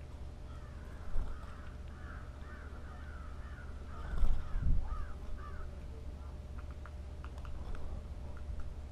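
Blue jay giving a run of harsh, repeated calls. About four seconds in comes a loud low flutter of wings as the bird lands on the tube feeder.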